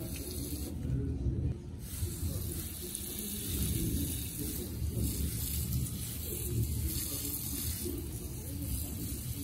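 Water spraying from a hose watering wand onto potted succulents and their soil: a steady hiss over uneven spattering.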